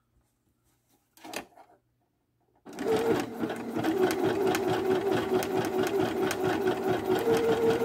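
Viking Jade 20 sewing machine stitching a wide zigzag. The machine starts about two and a half seconds in and runs steadily, with a rapid, even ticking of the needle over its motor hum, then stops at the very end.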